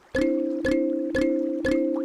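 Japanese railroad crossing alarm bell ringing its 'kan-kan', four bell-like strikes about two a second.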